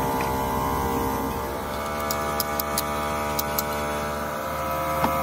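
A steady electrical hum, with light sharp metal clicks in the middle and one more near the end from pliers working at a cast-iron battery grid mould.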